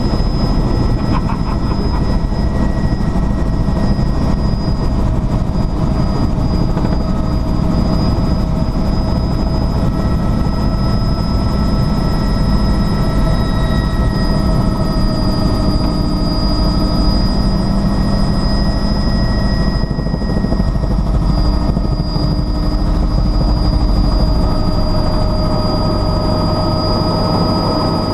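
Helicopter in flight: a steady, loud rotor and engine rumble with a constant high whine above it.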